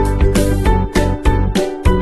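Upbeat background music with a steady drum beat and pitched instrument notes.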